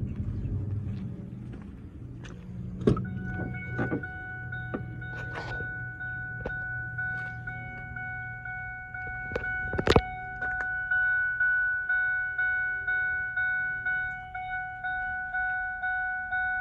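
A 2006 Ford F-150's door-open warning chime, dinging over and over after a click about three seconds in as the driver's door is unlatched. It gets louder after about eleven seconds, repeating a little under twice a second, and a sharp thunk comes about ten seconds in.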